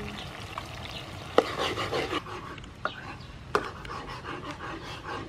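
Metal spoon and spatula clinking against a wok while a simmering sauce is stirred: three sharp clinks in the first few seconds, the first the loudest, amid the scraping of the stir.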